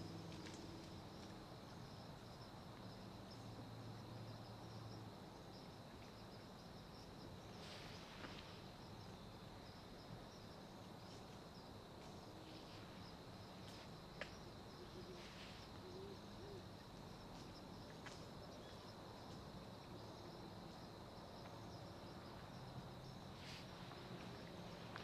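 Faint outdoor night-time ambience: crickets giving a steady high-pitched trill, with a few brief rustling sounds and one sharp tick partway through.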